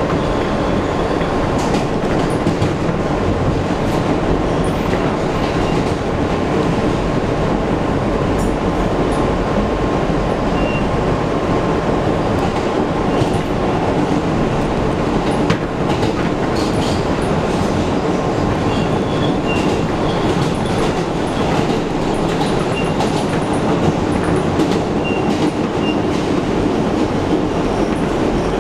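NYC subway train running at speed through a tunnel, heard from inside the front car. A steady rumble of steel wheels on the rails is broken by scattered clicks as the wheels pass over rail joints.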